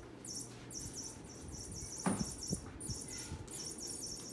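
Insects chirping in a steady rhythm of about three high-pitched chirps a second, with a single soft thump about two seconds in.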